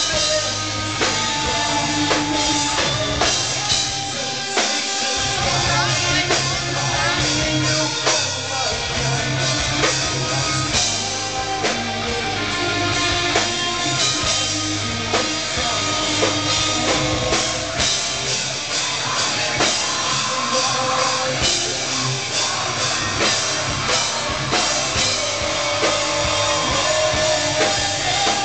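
Live rock band playing at full volume: electric guitar, bass and a drum kit with steady hits, and a singer's voice over them.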